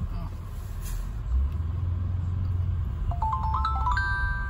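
Low, steady rumble of a Mercedes-Benz car driving slowly, heard inside the cabin. About three seconds in, a quick run of short notes steps upward in pitch.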